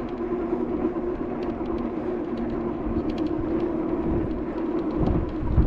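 Wind buffeting the action-camera microphone over a steady low hum, with a stronger gust of rumbling near the end.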